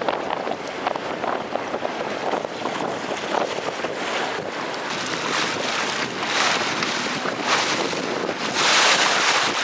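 Wind buffeting the microphone over choppy open sea, with waves slapping and splashing. The hiss swells in gusts a few times in the second half, most strongly near the end.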